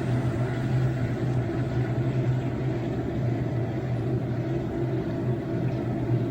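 Washtech UL Premium commercial undercounter dishwasher running a light wash cycle: a steady low pump-motor hum under a rumble of sprayed water.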